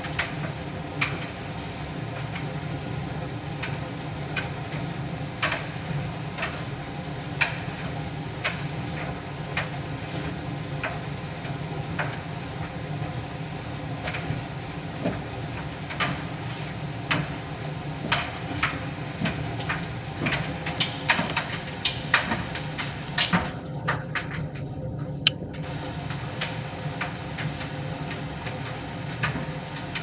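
Miele Professional PT 5136 tumble dryer running on a normal drying programme: a steady low hum with irregular sharp clicks and knocks from the turning drum, coming more often in the second half.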